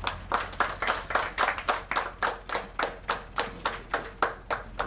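Hands clapping in a steady, even rhythm, about four claps a second.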